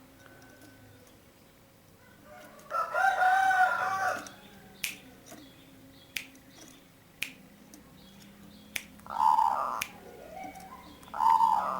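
Zebra dove (perkutut) cooing: a longer warbling coo about three seconds in, then two shorter coos near the end, with a few sharp clicks in between.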